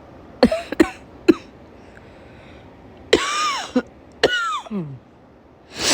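A woman with a summer cold coughing: three short, sharp coughs in the first second and a half, then two longer coughs with her voice falling in pitch, and a loud cough near the end. It is the cough she calls horrible and fears may be bronchitis.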